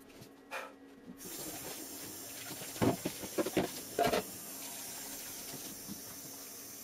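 Kitchen tap turned on about a second in, water running steadily into a sink, with a few sharp clatters of things being handled in it a couple of seconds later.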